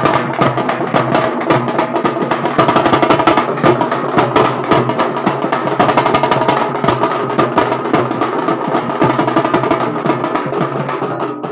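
Fast, dense drumming with sticks by procession drummers, the strokes coming thick and steady, with steady tones underneath.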